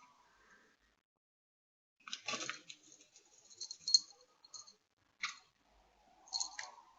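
A cat scuffling with a caught juvenile robin: a few short, crisp scuffling and clicking bursts, the loudest about four seconds in.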